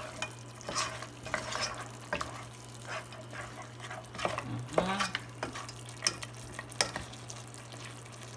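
Wooden spatula stirring goat meat in tomato sauce in a pot, in irregular scrapes and knocks against the pot, with the meat and sauce frying underneath.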